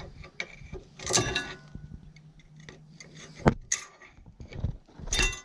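Thin steel brake pad clips (the pad abutment clips of a caliper bracket) being handled, clinking and clicking against each other and the metal bracket: several light metallic clicks with brief ringing and one sharper click about three and a half seconds in.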